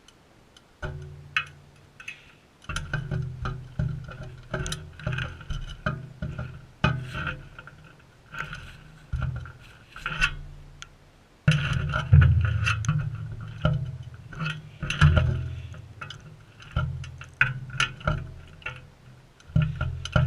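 Background music of plucked guitar over a bass line, playing in a steady rhythm. It starts about a second in and breaks off briefly about halfway through.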